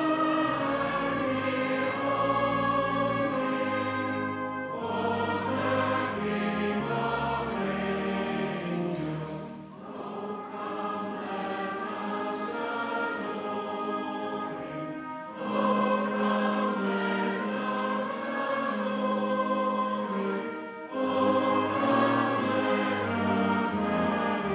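Colliery brass band playing a slow Christmas carol in sustained chords, the phrases breaking off about every five seconds.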